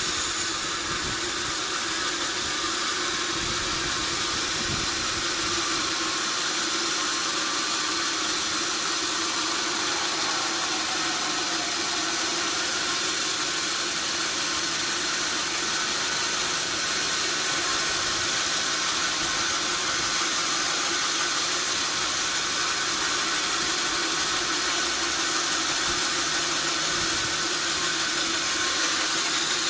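Sawmill machinery running steadily: a constant high hiss over a low mechanical hum, with no change in load.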